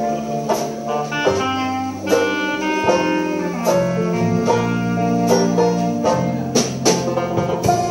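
Traditional jazz band playing a slow tune, the clarinet carrying the melody over banjo, string bass and drums, with sharp drum and banjo strokes throughout.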